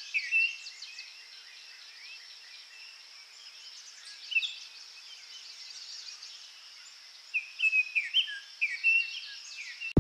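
Birds chirping in short bursts of quick, sweeping calls, over a steady high-pitched insect drone; a cluster of chirps at the start, one about four seconds in, and a longer run near the end.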